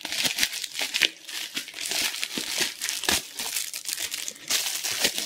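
Thin plastic packaging crinkling and crackling continuously as hands tear it open and pull a small case out of its plastic wrap.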